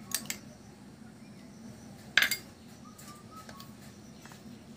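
A spoon clinking against a glass tumbler as mango pulp is spooned in: a couple of light clicks at the start, then one sharp clink about two seconds in.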